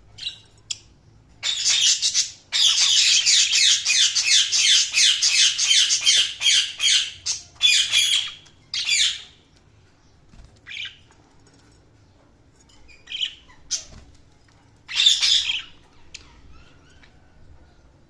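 Budgerigar chirping and chattering: a fast, dense run of short high notes for several seconds, then scattered single calls and one more brief burst.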